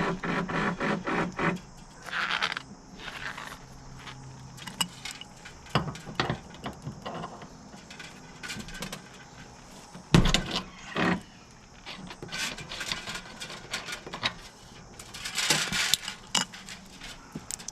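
Hand tools and metal parts being handled: an uneven run of clicks, jingles, rattles and scrapes, with one sharp knock about ten seconds in.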